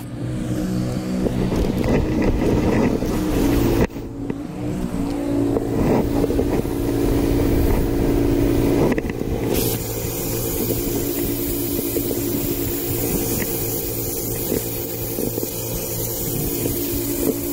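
Pressure washer running steadily, an engine hum with even low tones. The sound shifts abruptly about four seconds in and again near the ten-second mark.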